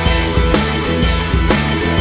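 Background rock music with a steady drum beat, a hit about every half second, over sustained bass and guitar notes.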